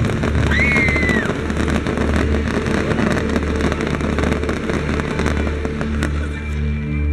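Fireworks display: dense crackling and popping over a low rumble, with a short high whistle about half a second in.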